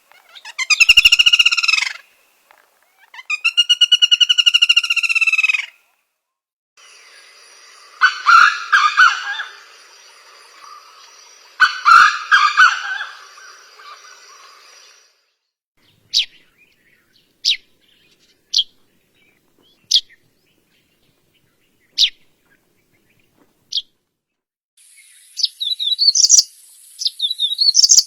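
Birds calling in a series of different recordings: first long, loud arched calls with a rich tone, then lower calls over a background hiss, then single sharp high chirps every second or two, and near the end a quick, high warbling song.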